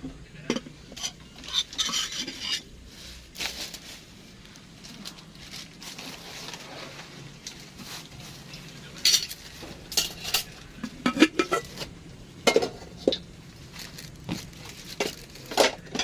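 Metal utensils clinking, knocking and scraping against cooking pots and dishes while food is being prepared. The sharper knocks come in clusters in the second half.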